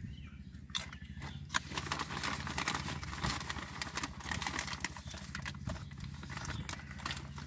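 Crunching of a ridged potato chip being bitten and chewed, then the crinkly rustle of a foil snack bag as a hand rummages inside it, a dense run of small crackles.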